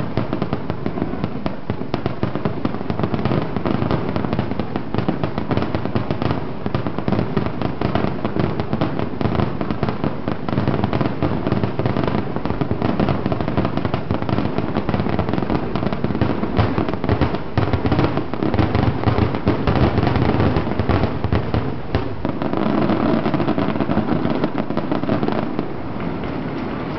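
Aerial fireworks going off in a dense, continuous barrage of rapid bangs and crackles. The bangs thin out over the last few seconds.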